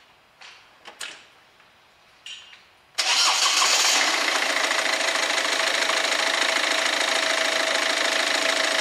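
A few faint clicks, then about three seconds in the Ford Focus's Peugeot-built 1.6 diesel engine starts abruptly. It runs a little louder for the first second, then settles into a steady idle on its newly fitted turbo, with no rattling or scraping noise.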